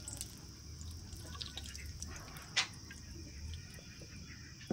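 Hot cooking oil being ladled out of a steel wok and poured into a small metal pot: faint dripping and trickling with small scrapes, and one sharp metal clink of the ladle about two and a half seconds in.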